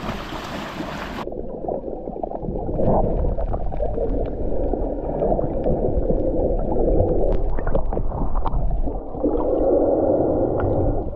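Splashing in shallow surf, then about a second in everything turns muffled as the camera goes underwater: dull rushing and gurgling water with scattered small clicks of bubbles, swelling louder in patches as swimmers move nearby.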